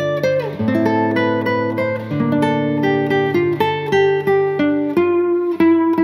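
Background music: acoustic guitar playing a melody of picked notes.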